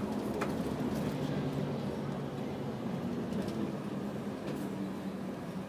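Steady engine hum and road noise heard inside a moving bus, with a few faint clicks and rattles.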